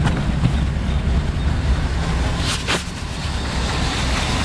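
Mercedes 450SL's 4.5-litre V8 idling steadily at about 600 rpm, running smooth on its rebuilt fuel distributor and new fuel injectors. Two brief clicks about halfway through.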